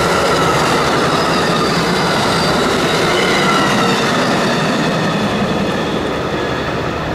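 Amtrak passenger train cars rushing past at speed: a steady rush of wheels on rail with faint tones sliding down in pitch. The sound eases a little as the last car goes by, about five seconds in.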